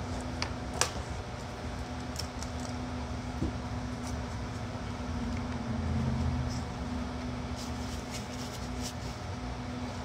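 Scattered light clicks and taps of clamps and wooden blocks being handled and tightened on a clamped-up box, the sharpest about a second in, over a steady low hum.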